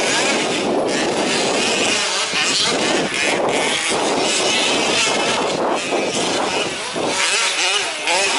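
Several 1/5-scale off-road RC trucks with small two-stroke petrol engines racing, their engines revving up and falling back over and over as they accelerate and brake around the track.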